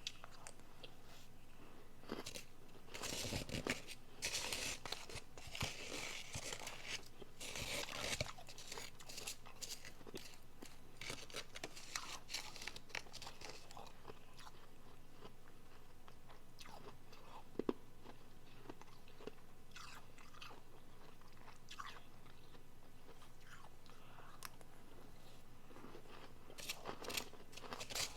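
Biting and chewing of soft, refrozen powdery blender ice close to the microphone. Dense crunching through the first half gives way to sparser, softer chewing, with one sharp click past the middle and a fresh burst of crunching near the end.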